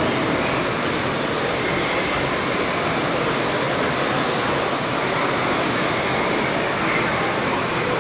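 Radio-controlled model tractors running while ploughing and harrowing loose soil, a steady mechanical noise with a faint whine that comes and goes, over the constant din of a busy exhibition hall.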